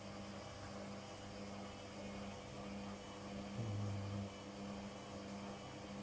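LOGIK front-loading washing machine running, its motor giving a steady low hum. A louder, deeper hum cuts in for under a second about three and a half seconds in.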